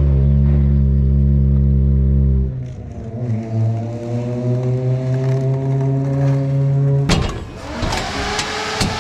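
Vehicle engines running: a steady low engine drone that stops about two and a half seconds in, then an engine slowly rising in pitch. About seven seconds in a sharp crackling burst breaks in, after which an engine runs steadily.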